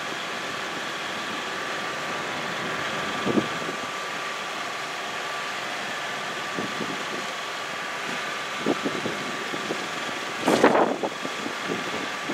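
Steady mechanical hum, broken by a few short knocks and a louder half-second burst of noise about ten and a half seconds in.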